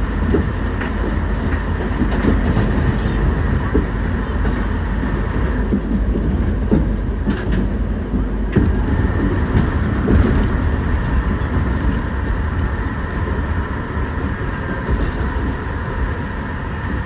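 Kawasaki R62 subway car running along elevated track, heard from inside the car: a steady rumble of the wheels and running gear with scattered clicks and clacks from the rails.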